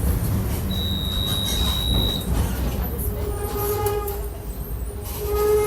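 Mercedes-Benz OF-1722 bus's diesel engine running low. Over it, a steady high-pitched squeal lasts about a second and a half, then a lower, fuller pitched tone sounds twice, each for about a second, the second time near the end.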